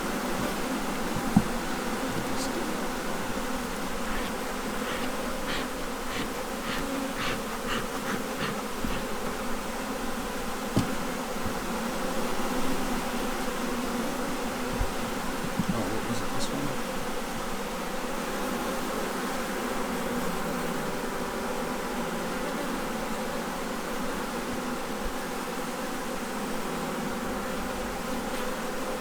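Honey bee colony buzzing steadily from an open hive during a frame inspection, with a run of light clicks about four to nine seconds in.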